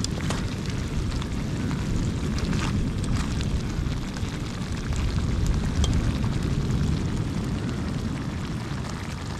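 Steady low rumble of wind buffeting the microphone, with a few faint scattered clicks.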